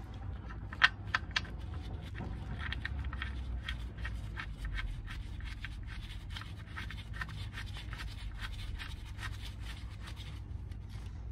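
Oil drain plug being threaded back into a Ford Focus's cast aluminium sump by a gloved hand: light scratching and rapid small clicks of metal on metal, with a few sharper clicks about a second in. A low steady hum sits underneath.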